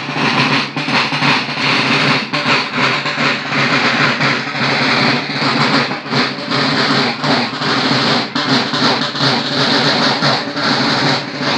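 Marching band of field drums and brass instruments playing loudly close by: a dense run of drumbeats over held brass notes.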